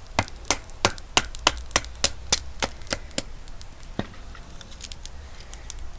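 A knife blade chopping into wood: about a dozen sharp knocks at roughly three a second, then a pause and one last knock about four seconds in.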